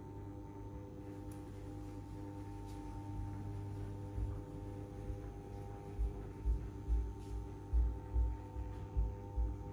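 Steady electric hum of the motorized display turntable as it turns, several fixed tones at once. From about six seconds in there is a run of soft low thumps, about two to three a second.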